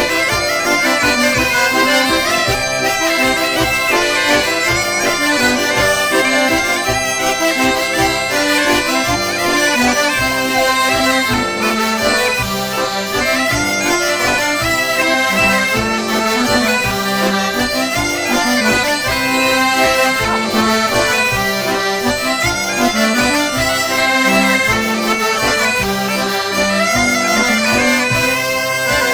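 Traditional French folk mazurka played on drone instruments: a steady drone sounds under a lively melody.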